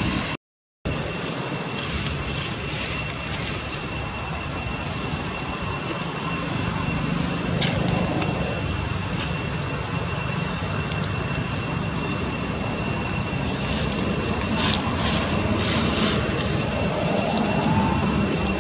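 Steady rushing outdoor background noise with two faint steady high-pitched tones, cut off completely for a moment about half a second in.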